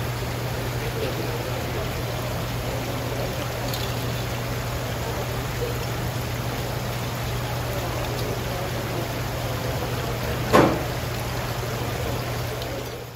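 Water trickling and splashing into live seafood tanks, over a steady low hum, with one sharp knock about ten and a half seconds in.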